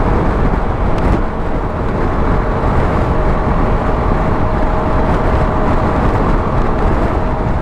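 Wind rushing over the microphone of a motorcycle riding at highway speed, mixed with the bike's engine and tyre noise. A faint steady whine runs through the middle.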